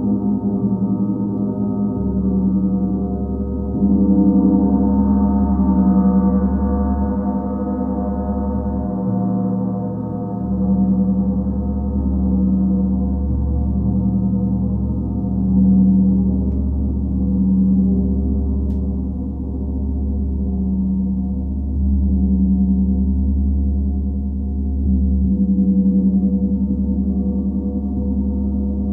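Planetary gong ringing in a sustained drone: many steady overlapping tones that swell and fade in a slow pulse every two to three seconds, over a deep steady hum, with no sharp strikes.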